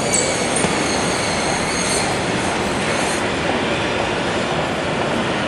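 Airport baggage carousel running: a steady rattle of its moving slat conveyor, with high-pitched metal squeals that fade out about three seconds in.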